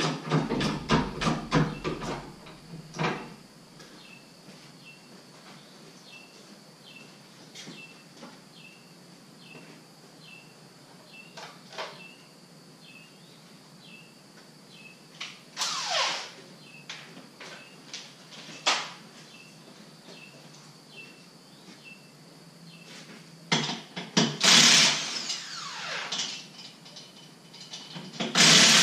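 Handheld power tool, likely a drill or impact gun working the wheel, run in a few short bursts, each whirring down in pitch as it stops, after a rapid run of clicks at the start.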